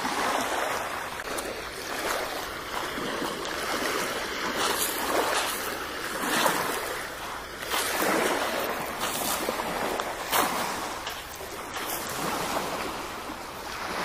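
Steady rushing of wind and river water on a shoreline. Footsteps crunch on pebbly, sandy ground about every second in the middle stretch.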